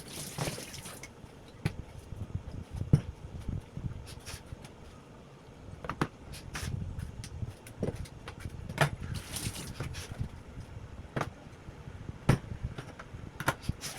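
Scattered knocks and clicks, about one every second or two, from household items and containers being handled and set down, with a couple of brief rustles.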